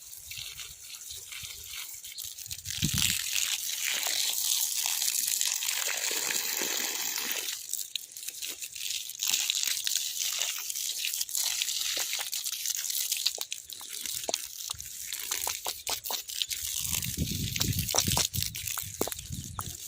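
Water gushing and splashing onto eggplant plants as they are watered, louder from about three seconds in, with crackling of leaves and a low rumble near the end.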